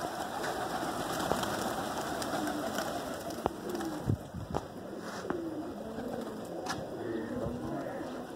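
A flock of domestic pigeons cooing, many short coos overlapping, with a rush of wingbeats as birds land in the first few seconds and a few sharp wing claps near the middle.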